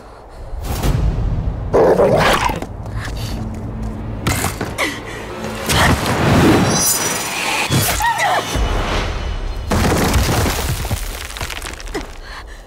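Dramatic film score punctuated by several heavy impact hits and rushing swells of noise, the layered action sound effects of a drama scene.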